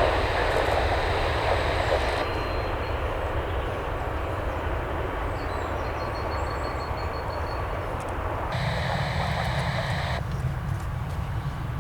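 Jet airliner engines, a steady rushing roar that changes character abruptly twice.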